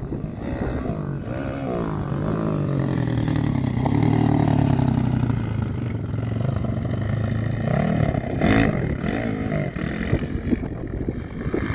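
Small off-road vehicle engine running and revving, its pitch rising and falling as the throttle is worked, loudest a few seconds in, with quick blips of the throttle near the end.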